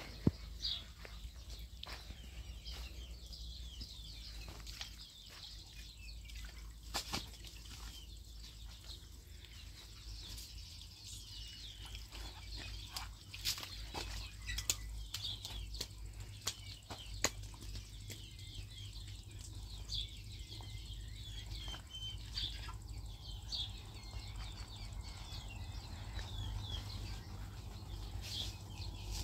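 Small birds chirping over a steady low hum and water trickling in an irrigation ditch, with a few short sharp snaps and clicks as wet laundry is handled and hung. The chirping grows busier near the end.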